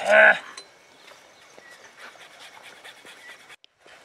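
A short vocal cry, then faint scratching, rubbing and light metallic clicks of hands working a bicycle tyre and wheel.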